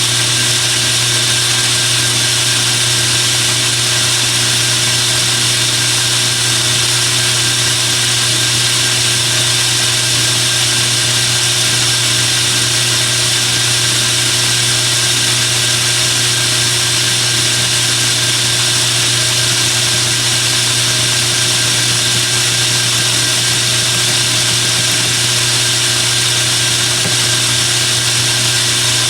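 Metal lathe running steadily while a screw is cut to length, a quarter inch being taken off with a cutting bit; a constant motor hum with a high hiss and no change in pace.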